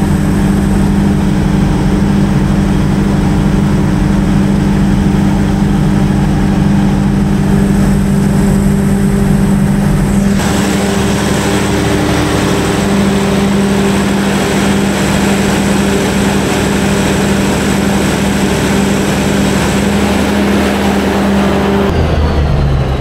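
Large Perkins diesel generator set running steadily under load test, a loud constant hum. Near the end the steady note stops and falls away as the set shuts down on undervoltage.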